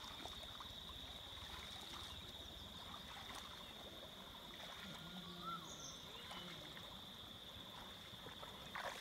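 Faint outdoor ambience: a steady high-pitched drone over a low rushing haze, with a faint short chirp about five seconds in.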